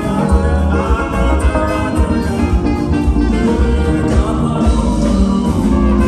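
Band music with a strong bass line, held keyboard-like chords and a steady, regularly ticking beat, loud and unbroken.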